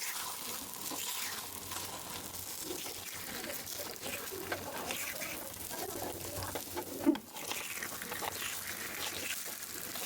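Appe batter frying in ghee in an appe pan, a steady faint sizzle, with one brief knock about seven seconds in.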